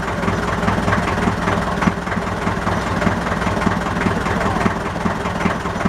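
Motorboat engine idling steadily during mooring.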